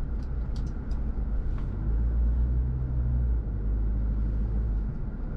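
Car being driven slowly through town, with a steady low engine and road rumble heard from inside the cabin. The engine note comes up briefly about midway.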